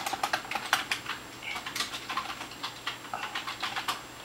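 Typing on a computer keyboard: an irregular run of key clicks, several a second, as a name is typed into a text box.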